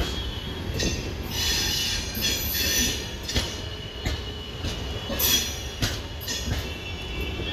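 Passenger coaches of an Indian Railways superfast express rolling past slowly as the train arrives. The wheels knock and rumble on the rails, with high-pitched wheel squeal rising twice, about a second and a half in and again about five seconds in.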